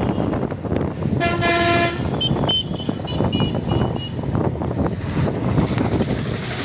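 Moving bus's engine and road noise, heard from inside the bus, with a vehicle horn blaring once about a second in, followed by a run of short high beeps.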